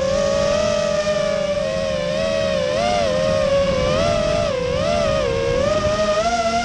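Electric motors and propellers of an FPV racing quadcopter giving a steady whine. Its pitch rises and falls repeatedly with the throttle, dipping most about four and five seconds in.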